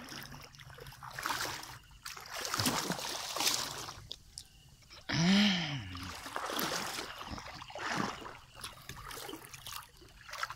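Shallow water sloshing and splashing in a series of surges as a person wades knee-deep through it. About halfway through comes a short voiced sound that rises and falls in pitch, like a man's brief grunt or exclamation, the loudest moment.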